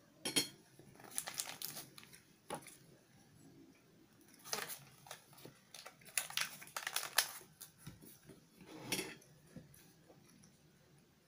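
A paper food wrapper being folded and crumpled by hand, in irregular bursts of crinkling, with a light clink of a metal spoon on a glass plate.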